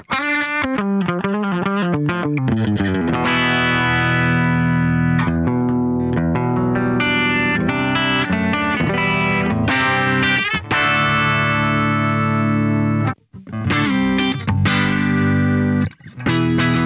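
Electric guitar played through an Xvive V9 Lemon Squeezer compressor pedal, which is switched on. It opens with a run of quick single notes, then moves to long sustained chords, with two brief breaks in the last few seconds.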